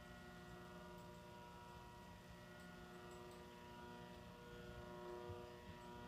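Dayton 56-inch industrial ceiling fan running at its lowest speed on a variable speed control, giving off a faint, steady electrical hum. The owner has noticed this hum only since using the control.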